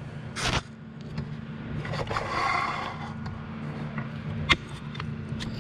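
Metal lathe parts being handled while taken apart: a knock, a scrape of metal sliding about two seconds in, and a sharp click near the end, over a steady low hum.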